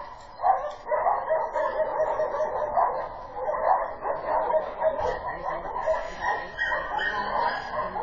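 A dog barking over and over in quick, repeated barks.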